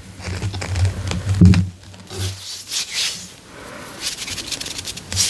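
Bath bomb being carved and scraped close to the microphone. A low rumble of handling comes first, then, from about two seconds in, several rough, crackly scraping strokes as pieces are worked off.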